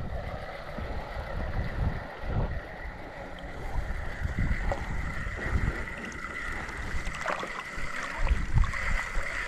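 Water lapping and sloshing around a small one-person pontoon boat, with irregular low wind rumble on the microphone. A faint steady high tone comes in about halfway through.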